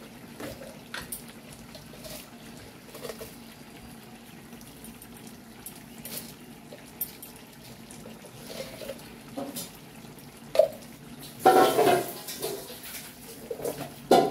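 Kitchen handling sounds: a plastic jar being opened and handled with light clicks, and a short loud rustle about eleven and a half seconds in as sugar is added. Underneath is a faint steady simmer of the curry in the wok.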